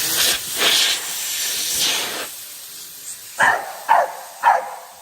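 A spraying hiss for about two seconds, then a dog barks three times in quick succession.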